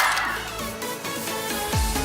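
Electronic dance music with steady synth notes after a noisy sweep fades out. A deep, booming kick drum comes in near the end.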